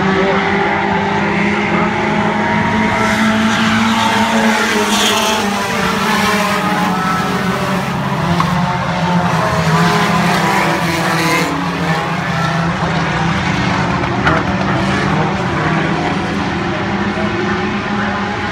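A pack of dirt-track stock cars running around the oval, their engines revving and changing pitch as the cars pass.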